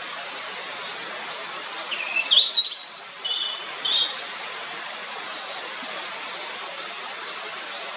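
Blue-and-white flycatcher singing one phrase about two seconds in: a quick run of clear whistled notes that jump up and down, then a few short notes, over a steady background hiss.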